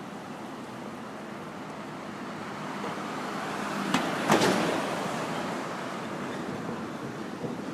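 City street traffic: a vehicle passes close by, its noise swelling and then fading, with two sharp clacks about four seconds in as it goes past.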